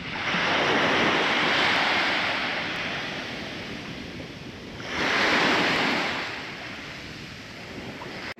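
Ocean waves washing in, two swells of surf that rise and fade away.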